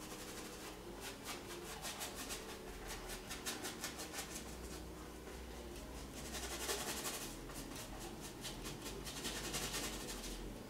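Stiff bristle brush rubbing paint into a stretched canvas, scrubbing in quick, scratchy repeated strokes to blend out the clouds, with flurries of faster strokes about two-thirds through and again near the end.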